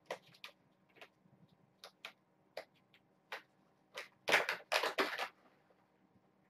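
Crinkly bag being handled: scattered short rustles and clicks, then two louder rustling bursts about four and a half to five seconds in.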